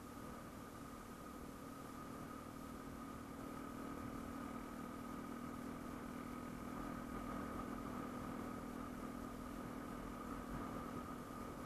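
Yamaha M-Slaz single-cylinder motorcycle engine running steadily, holding one even pitch.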